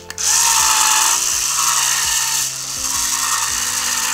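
Small 3.6 V DC motor and planetary gearbox of a Berghoff electric corkscrew running with a steady whir, starting just after the beginning and easing slightly about two and a half seconds in, while its output shaft is gripped by hand and keeps turning. The owner blames worn, overcharged battery cells for its lack of torque to open a bottle.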